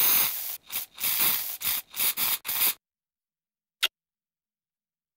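Scratchy scribbling strokes of a pen drawing a handwritten title, about seven quick strokes in the first three seconds, then one short click about a second later.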